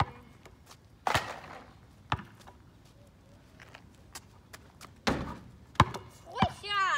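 A basketball bouncing on asphalt: about half a dozen separate thuds at uneven intervals, some followed by a short rattle. A young child's high voice comes in near the end.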